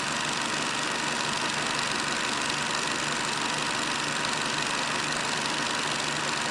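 A steady, loud hissing noise, even and unchanging, with its energy mostly in the upper range.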